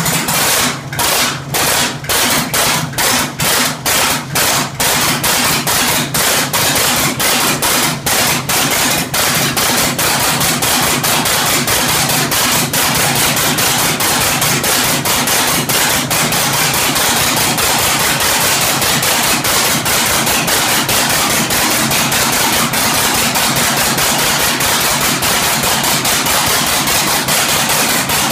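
Oliver 1750 tractor's rebuilt Waukesha 310 six-cylinder diesel catching on its first start after an overhaul. Its firing comes as separate bangs at first, quickens over the first ten seconds or so, then settles into a loud, steady, rapid clatter. The injection timing is off.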